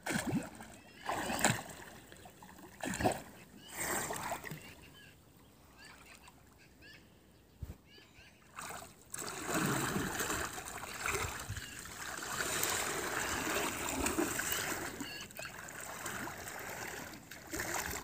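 Swimmer's strokes splashing in calm river water, several separate splashes in the first few seconds. From about ten seconds in, steady splashing for several seconds as she scoops and throws water with her hands in the shallows.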